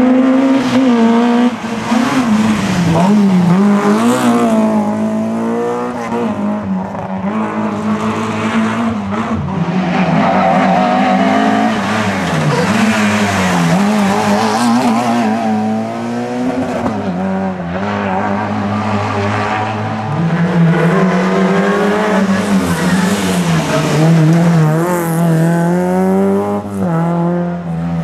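Rally car engines revving hard, the pitch climbing and dropping again and again through gear changes and braking, with some tyre squeal in the turns.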